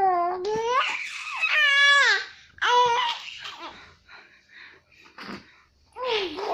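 A baby laughing and squealing in several high-pitched bursts, with a quieter stretch of short breathy sounds in the middle.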